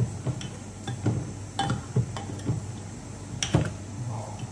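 Metal spoon stirring tamarind sauce in a stainless steel saucepan, clinking and scraping against the pan's sides at irregular intervals, with two louder knocks about a second and a half in and about three and a half seconds in.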